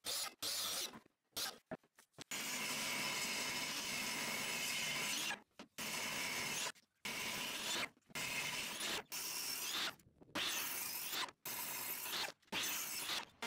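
A sliding mitre saw and a benchtop table saw cutting wood, with the table saw ripping leg stock. The sound comes in a string of short snatches that start and stop abruptly; the longest lasts about three seconds.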